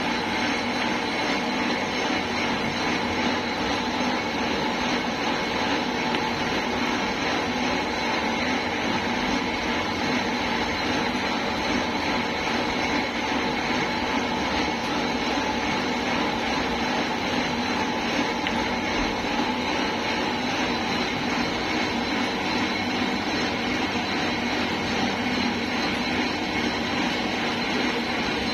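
Steady running of factory machinery, a constant hum with several steady tones over a rushing noise that does not change.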